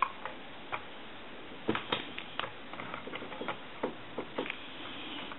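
Light, irregular clicks and knocks of a Crosley 302 reproduction telephone's plastic and metal parts being handled and fitted back together during reassembly.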